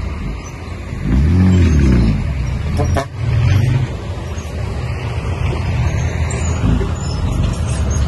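Heavy construction machine's diesel engine running, revving up and back down about a second in. A sharp click comes near the three-second mark, and the engine then runs on steadily.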